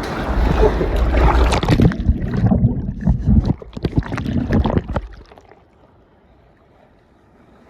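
Ocean surf washing over a camera in the water: a loud rushing wash with a low rumble, then choppy splashing. About five seconds in it drops abruptly to a faint, muffled hush.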